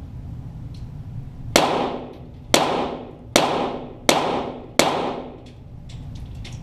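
.22 Walther GSP target pistol firing five shots, about one a second and getting slightly quicker, each report followed by a short echo that dies away.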